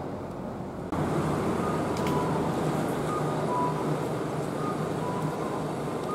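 Street traffic noise at a road junction, louder after about a second, with short electronic beeping tones repeating from a pedestrian crossing signal.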